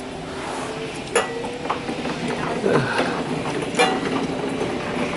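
A few sharp mechanical clicks and knocks, two louder ones about a second in and near four seconds, over steady background noise and a low hum.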